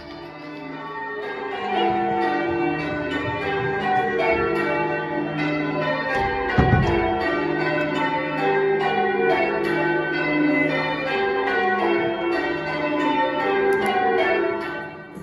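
Bells ringing: many overlapping tones that ring on and die away, with one heavy low thud about six and a half seconds in.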